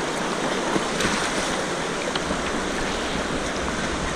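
Steady rush of whitewater from a rocky mountain river's rapids, heard from a kayak on the water.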